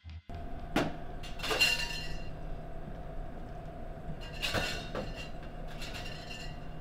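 Glassware clinking behind a bar, several separate chinks spread through, over a steady low background hum.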